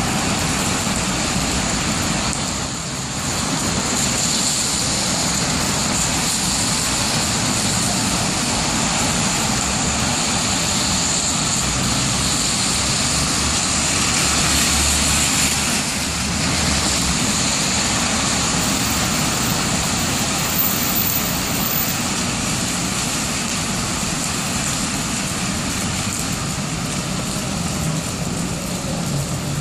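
Steady hiss of rain over city traffic on wet pavement, with the low rumble of a car passing about halfway through.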